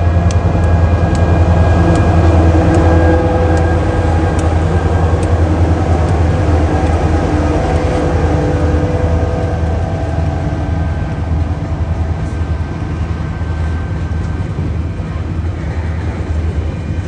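Diesel locomotives of a TasRail coal train running past close by: a loud, deep engine drone with a steady whine over it, slowly easing off after a few seconds.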